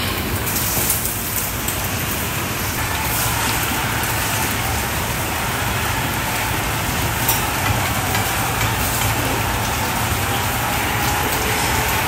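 Many sows in gestation crates eating from a feed trough: a dense, steady crackle of chewing with small clicks scattered through it, over a low steady hum.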